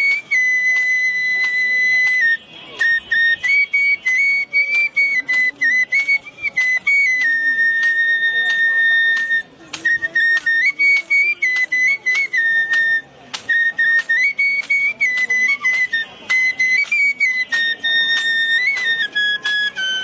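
A short bamboo transverse flute (bashi) playing a melody in a high register. Held notes step up and down, tongued into many short pieces, with brief pauses for breath a few times.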